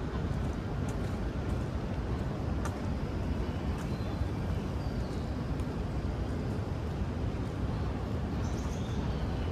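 Outdoor city-park ambience: a steady low rumble of distant city traffic, with a few faint, brief bird chirps and occasional light ticks.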